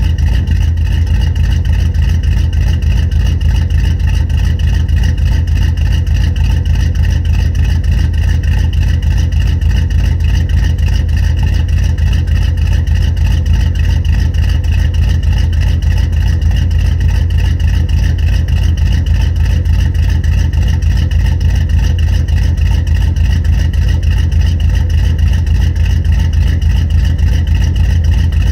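1978 GMC K25's 383 stroker V8 idling steadily, its exhaust pulses even, through long-tube headers, an X-pipe and single-chamber mufflers, heard from beneath the truck. The engine is still cold after a start at about 30 degrees.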